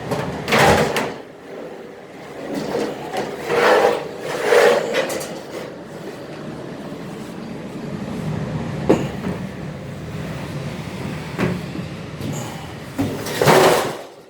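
Dryer's sheet-metal drum being worked loose and pulled out of the cabinet: metal scraping and clanking against the housing in several long scrapes, about half a second in, around four seconds and near the end, with a sharp knock about nine seconds in.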